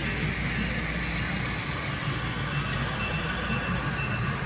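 N scale model trains rolling past on several close parallel tracks, a steady rumble of wheels and small motors under the general noise of a large exhibition hall.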